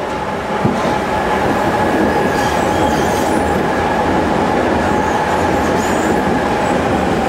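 A Berlin U-Bahn GI "Gisela" train running into the platform, with a loud rumble of wheels on rail and the high-pitched whine of its traction motors, which begins to drop near the end as it brakes.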